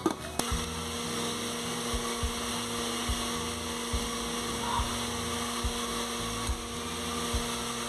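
Electric blender motor starting up a moment in and running at a steady pitch, grinding tomatoes, spices, almonds and water into a sauce.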